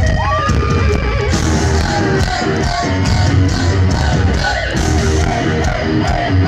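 Live heavy-metal band playing loud through a large outdoor PA, heard from close to the stage's speaker stacks, with a sustained note that bends up and slowly sinks near the start.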